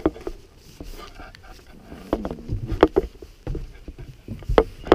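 Irregular footsteps and scuffs on leaf-strewn, debris-covered ground, with a few low thumps.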